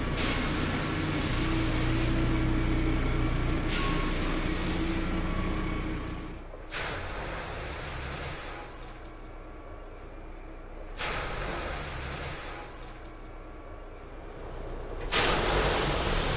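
Plasser & Theurer 09-4X E³ track-tamping machine working on the line: steady machinery running with a low hum over hissing noise. The sound changes abruptly several times, about every three to four seconds.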